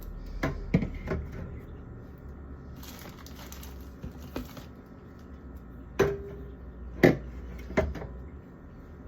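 Drink containers being set down and knocked against each other while a fridge is stocked: a few quick clunks at the start, a rustle in the middle, then three louder knocks near the end, the first with a brief ring.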